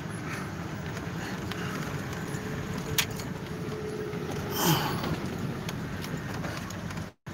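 Four-wheel-drive truck crawling over a rough, rocky dirt track, heard from inside the cab: a steady rumble with loose things rattling. There is a sharp click about three seconds in and a brief louder noise near five seconds, and the sound cuts out for a moment near the end.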